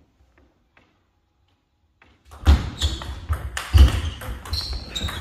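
Table tennis rally: the ball clicks off bats and table among heavy thuds of footwork on a wooden floor. It starts a couple of seconds in, and a brief squeak comes near the end.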